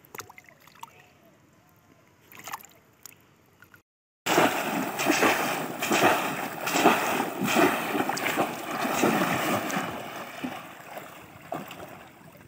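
Water splashing and sloshing as a bamboo fish trap is worked through shallow muddy water. It starts abruptly after a brief gap and eases off near the end; before the gap there are only faint water sounds and small ticks.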